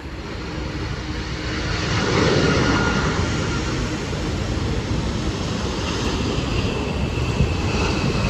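A jet airliner passing low overhead: a steady loud roar that builds over the first two seconds and then holds, with a faint high whine running through it. The hiss and rumble of traffic on a wet road lie beneath it.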